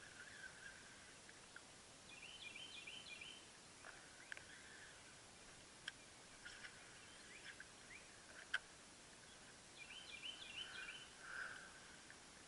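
Near-quiet outdoor air with a songbird singing a short phrase of quick repeated high notes twice, about eight seconds apart. A few faint sharp clicks fall in between, the loudest a little past the middle.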